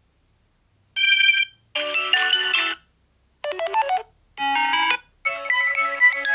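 Samsung Galaxy A20e ringtones playing from the phone's speaker: five short musical snippets, one after another, each cut off after a second or so, with brief silences between.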